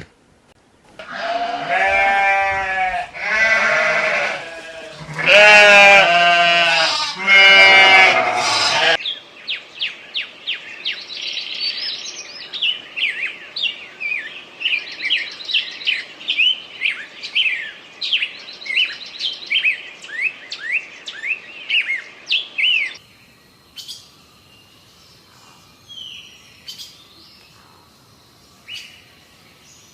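Sheep bleating: four long, loud, wavering bleats over the first nine seconds. Then a rapid string of short high chirps runs for about fourteen seconds, followed by a few faint scattered calls.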